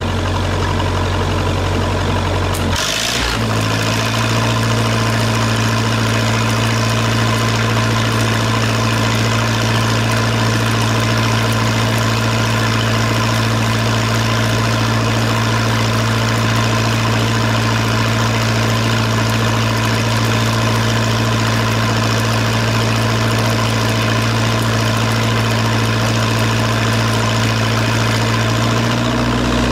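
A heavy engine running steadily at a constant speed. About three seconds in there is a short burst of noise, and the engine settles onto a new, slightly higher steady pitch.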